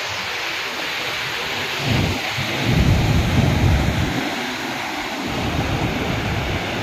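A muddy flash flood rushing past as a steady, loud noise of flowing water and debris. A deep rumble swells up about two seconds in and again a little after five seconds.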